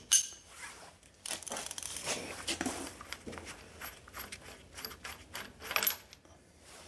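Small metal clinks and rattles as a three-jaw gear puller is taken off and the loosened harmonic balancer is worked off the crankshaft snout of a Ford FE 390 V8 by hand, with one sharper clink about six seconds in.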